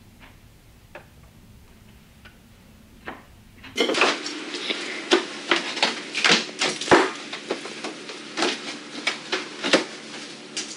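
Faint room tone with a few light clicks, then, about four seconds in, a busy clatter of clicks and knocks as clothes and small items are rummaged and pulled out of a drawer.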